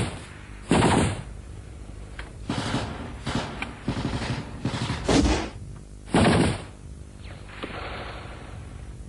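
Assault-rifle gunfire: a string of loud shots and short automatic bursts at irregular intervals, with the heaviest about one, five and six seconds in.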